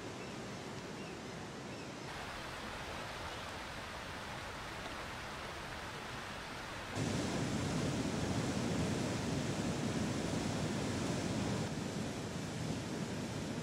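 Rushing water of river rapids and a rocky stream, a steady noise that jumps in level a few times and is loudest and deepest from about seven seconds in.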